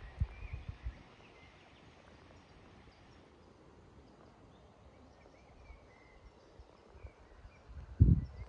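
Outdoor ambience with faint, short bird chirps. There are a few low thumps in the first second and a loud low thump near the end.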